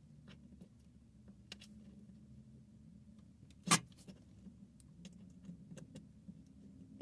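Scattered light clicks and handling noises with one sharp knock a little past the middle, over a low steady hum.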